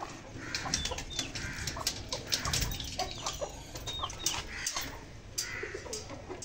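Chickens clucking, mixed with many short, high chirps and clicks.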